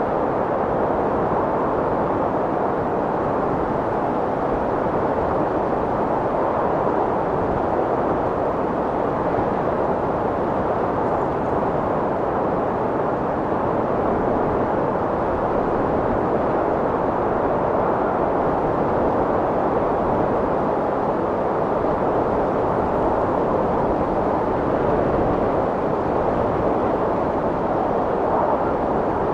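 Strong wind blowing in a steady, even rush with no gusts or lulls.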